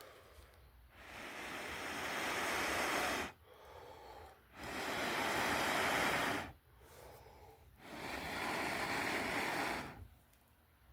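Three long, steady blows of breath into a smouldering horseshoe fungus ember packed with birch bark, blowing the ember up to set the bark alight.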